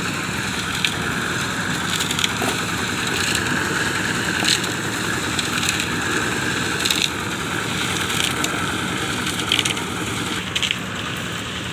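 Drum concrete mixer running steadily, its load of concrete churning in the drum, with scattered clanks and scrapes of buckets being filled with wet concrete.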